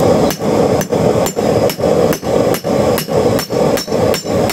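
A hammer beating the metal spear shaft of a homemade fish spear in steady, even strokes, about two to three a second, shaping its tip by hand, over a steady hum.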